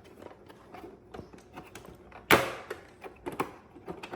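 Plastic housing panels of a Keurig K-Duo Essentials coffee maker being pried apart by hand: a run of small plastic clicks and ticks, then a loud plastic snap a little past halfway as a clip lets go, and another sharp click about a second later.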